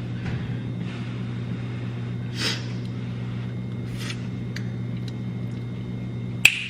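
Steady low hum of a kitchen appliance motor, such as a stove's range-hood fan, with two soft brief scrapes in the middle, like a spoon stirring a pot, and one sharp click near the end.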